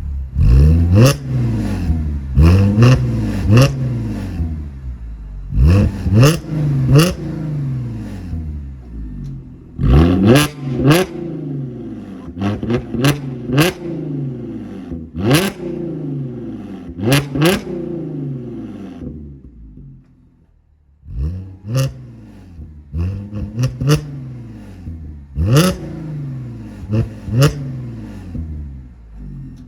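Audi S4 B8's supercharged 3.0 V6 revved again and again in quick throttle blips through an aftermarket bypass exhaust with an X-pipe and the mid muffler deleted. Each rev climbs sharply with a crack at its peak, then falls back toward idle. There is a brief lull about two-thirds of the way through.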